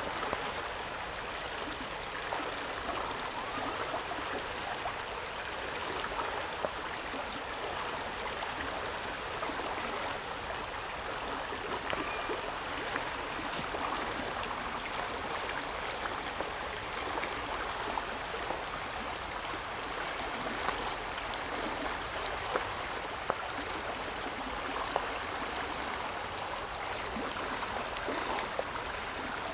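Steady rushing of running water, like a stream, with a few faint clicks scattered through it.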